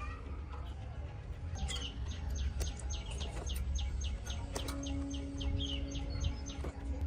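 A bird calling in a quick run of short, high, falling notes, about four a second, starting about a second and a half in and stopping shortly before the end, over a steady low rumble.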